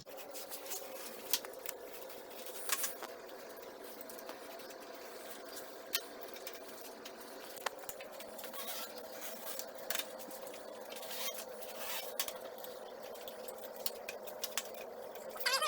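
Scattered light clicks and scratches of hand work on a window screen and frame, over a steady low hum.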